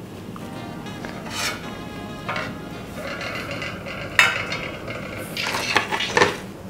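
Stainless steel kitchen tongs clinking against a pan and a metal serving platter as milk-soaked fried bread slices are lifted out and set down: a few sharp metallic clinks, the loudest about four seconds in and near the end.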